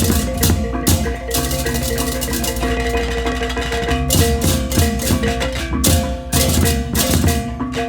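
Balinese baleganjur gamelan playing: a mass of ceng-ceng cymbals clashing in dense, rapid bursts over kendang drum strokes, with ringing gong and kettle-gong tones underneath. The cymbal clashes thin out briefly in the middle, then return in full.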